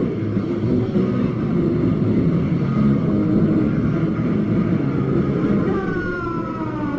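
Hardcore punk band playing live, heard through a poor, muddy audience recording: distorted electric guitars, bass and drums in one dense, loud wash. Near the end a high tone slides downward.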